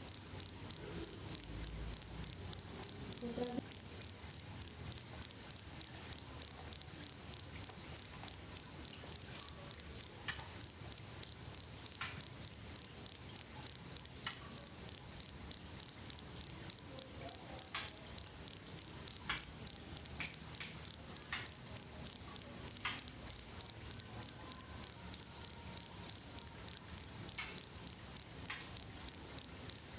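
Cricket chirping steadily: one high, pure tone pulsed in an even rhythm of about three chirps a second.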